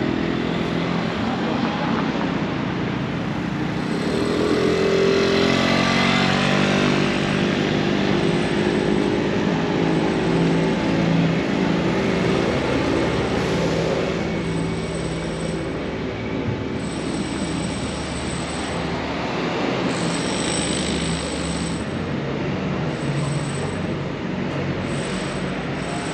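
Rail vehicle running past, its motor whining and gliding in pitch about five seconds in, then settling into a steady hum. Thin, high wheel squeals come and go in the second half.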